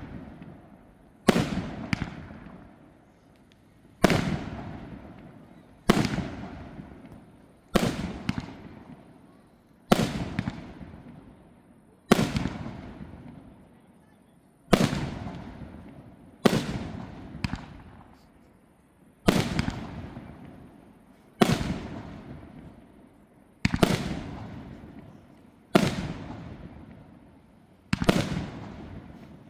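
Fireworks going off in a steady sequence: a sharp, loud bang about every two seconds, each one trailing off over a second or so before the next.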